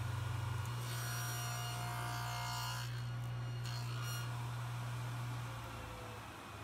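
Cabinet table saw with a dado blade running, a steady low hum that eases off a little near the end.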